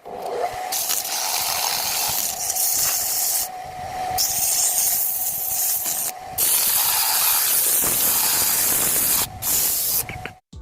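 Spray gun hissing in long bursts, with three brief stops, over a steady whine; typical of spraying a finish coat onto the turned wood.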